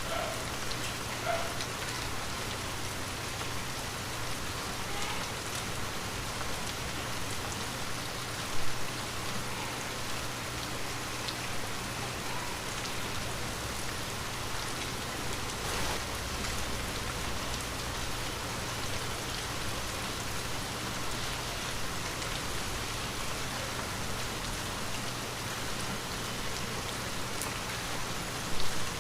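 Light rain falling steadily: an even hiss with scattered separate drop hits, and two louder short knocks, about nine seconds in and near the end.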